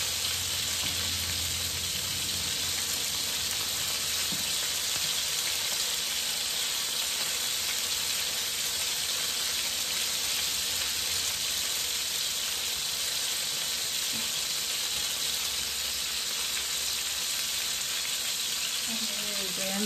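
Cod fillets sizzling steadily as they pan-fry in hot oil in a nonstick frying pan.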